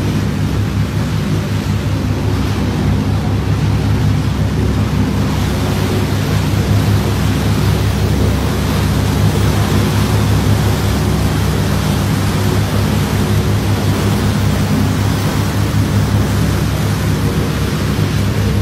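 Tour boat's engine running steadily with a low hum, under a loud, even rush of wind on the microphone.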